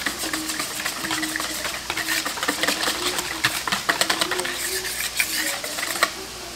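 Wire whisk beating a thin liquid sauce in a plastic mixing bowl: rapid, irregular clicking and rattling of the wires against the bowl, stopping about six seconds in.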